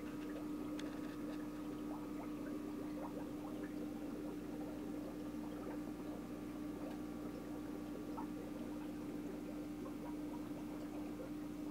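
Aquarium equipment running: a steady hum with water trickling and many small bubbling ticks over it.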